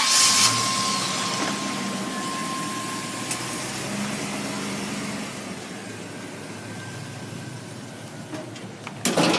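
Box truck's engine idling just after being started, loud at first and growing steadily fainter. A few sharp clunks near the end.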